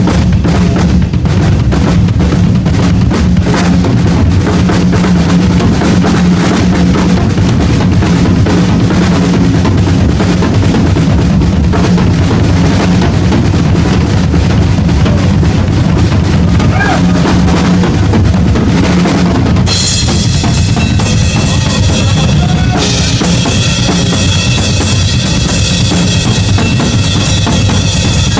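Live heavy-metal drum solo on a full drum kit: dense, fast strokes over a pounding bass drum, with cymbals crashing in much more strongly about two-thirds of the way through.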